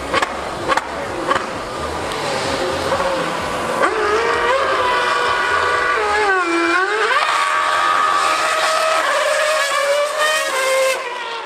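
2013 Mercedes Formula 1 car's 2.4-litre V8 running at high revs as it passes on the circuit. Its high-pitched engine note comes in about four seconds in and rises, dips sharply and climbs again around the middle, then fades near the end.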